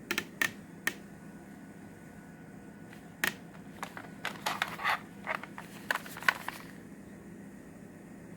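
Plastic cassette tape cases clicking and clattering as they are handled and sorted: three sharp clicks at the start, one a couple of seconds later, then a quick run of knocks and rattles that stops near the end.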